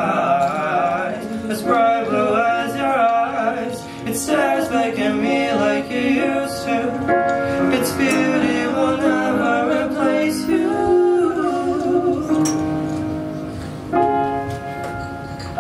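Voices singing a slow ballad to piano accompaniment, the melody settling into long held notes, with a new chord struck near the end.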